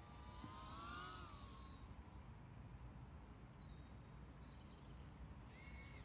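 Faint whine of a small FPV quadcopter's brushless motors (1407 size) and propellers, gliding up and down in pitch with throttle, loudest about a second in and again near the end, over a low steady hiss.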